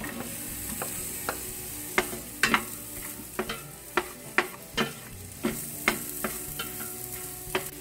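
Onions and sliced hotdogs sizzling in hot oil in a stainless steel pot, with a wooden spatula knocking against the pot as they are stirred. The knocks come irregularly, one or two a second, from about a second in.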